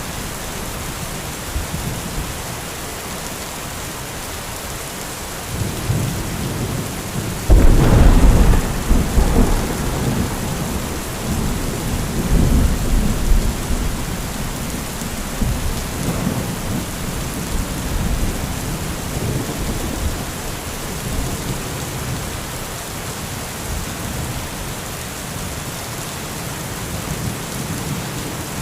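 Heavy thunderstorm: rain falls steadily throughout. About five seconds in, thunder starts to rumble, breaks into a sudden loud clap a couple of seconds later, then rolls on in waves for over ten seconds before dying away under the rain.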